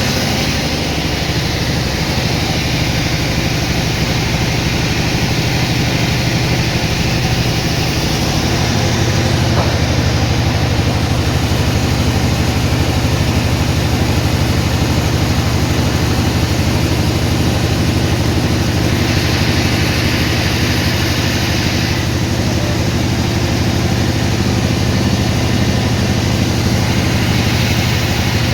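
Sawmill machinery running with a steady engine-like hum. The hum shifts and grows a little louder about eight seconds in, and a brief hiss rises over it around twenty seconds in.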